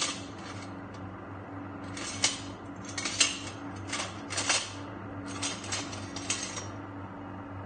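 An aluminium foil cake tray being scraped and crinkled as the chocolate-glazed cake in it is handled, in four short clusters of scraping and rustling about a second apart.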